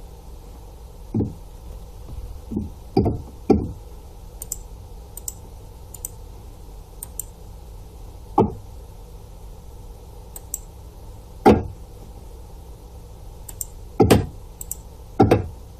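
Irregular computer mouse clicks and desk knocks, about eight sharp dull ones with fainter light ticks between, over a steady low electrical hum.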